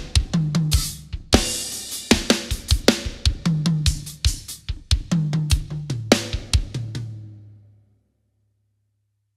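Acoustic drum kit played in a dense run of gospel-style fills: quick snare, tom and kick strokes with cymbal crashes and ringing low tom tones. The playing stops about seven seconds in and the last ring fades to silence.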